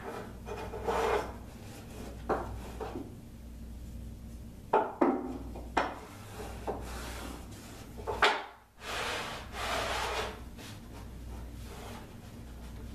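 A small wooden block pressed and rubbed along a self-adhesive carpet tile to tuck it into the corner of a wooden box. It makes scraping, rubbing sounds, with several short wooden knocks, the loudest about eight seconds in.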